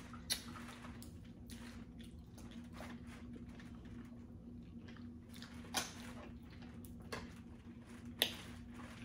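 Faint wet eating sounds from a sauce-coated seafood boil: squishing, scattered small cracks and snaps of shells being pulled apart, and chewing, over a steady low hum.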